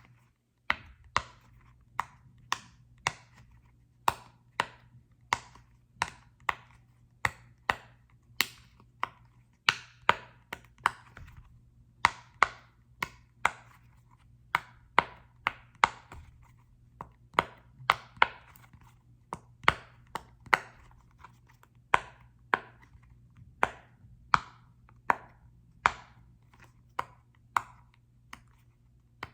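Repeated sharp taps on a small football-shaped object, about two a second in an uneven rhythm, each with a short ring.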